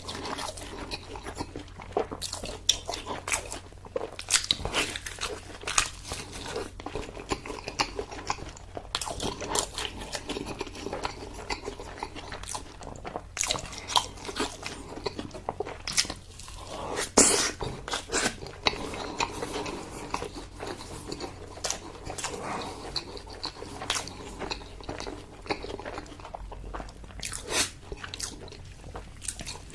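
Close-miked eating sounds: biting and chewing braised pork leg, with many irregular sharp clicks and wet mouth noises. The loudest bite comes a little past halfway.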